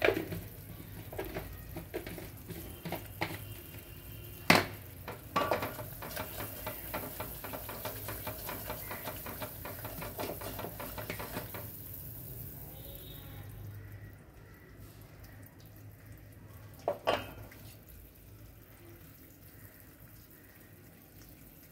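A ladle clinking and scraping in a pan of sugar syrup while the syrup is tested for its ball consistency, with light water sounds. There is a sharp knock about four and a half seconds in and a quick double knock near the end.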